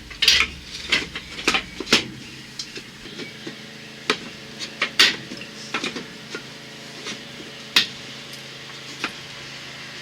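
Irregular knocks and clicks of wooden beehive box parts and tools being handled, with a faint steady hum underneath.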